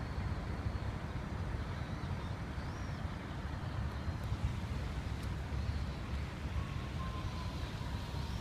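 Steady low rumble of city traffic around an urban park, with a few faint, short, high bird chirps over it.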